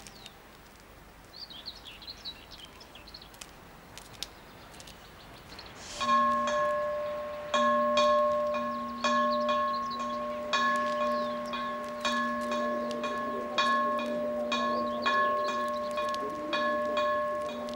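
Faint bird chirping, then about six seconds in a single bell starts tolling slowly, one stroke about every second and a half, each ringing on into the next: a funeral knell.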